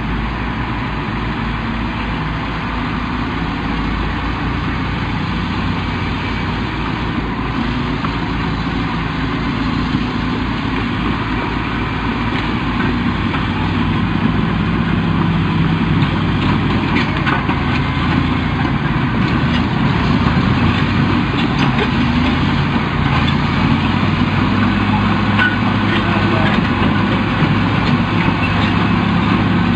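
Diesel engine of a military crawler bulldozer running steadily as it works, its pitch shifting with the load, with scattered clanks and knocks in the middle stretch.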